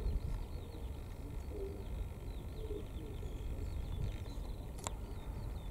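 Birds outdoors: a pigeon cooing a couple of times and small birds chirping, over a steady low rumble. A single sharp click comes near the end.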